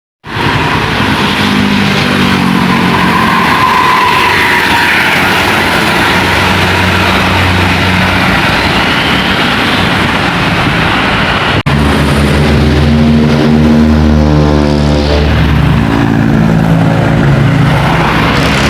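Diesel engines of buses driving past close by, with tyre and road noise. The sound breaks off abruptly about twelve seconds in, then another bus engine runs with a steady low drone.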